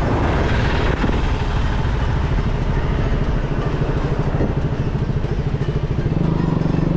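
KTM Duke 200's single-cylinder engine running steadily on the move, with a pulsing low note that strengthens near the end.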